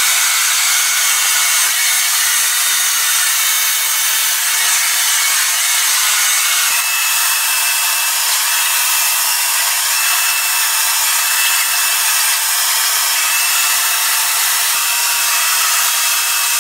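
Hand-held hair dryer blowing steadily: a constant rushing hiss with a faint steady whine, held close to the hair as it dries.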